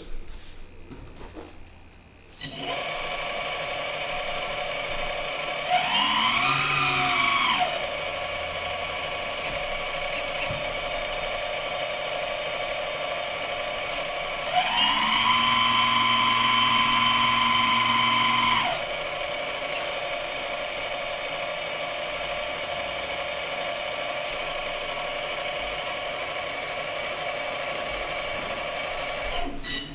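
Hydraulic pump of a Premacon Liebherr 956 RC excavator starting up about two and a half seconds in and running with a steady whine. Its pitch and loudness rise twice under load, briefly around six seconds in and for about four seconds in the middle, as the hydraulic cylinders change the angle of the adjustable boom.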